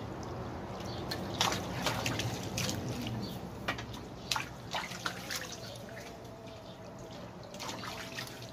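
Water trickling and dripping, with many short, sharp clicks and smacks scattered through it.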